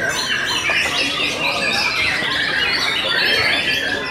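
Caged young white-rumped shamas singing together: a dense, unbroken chorus of overlapping whistles, trills and chatter from many birds at once.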